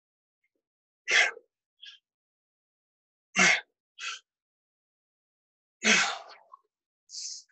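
A man breathing hard through his mouth while doing push-ups: three forceful exhales about every two and a half seconds, each followed by a shorter, fainter breath. It is the laboured breathing of a tiring final set.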